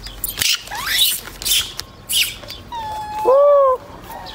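A macaque calling: one short, clear call that rises and falls in pitch, the loudest sound, about three seconds in. Several brief rustling or scuffling noises come before it.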